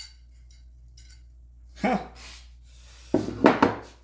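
Hammer knocking on the butt of a screwdriver handle, driving the handle down onto the shank: one knock about two seconds in, then a quick cluster of loud knocks near the end.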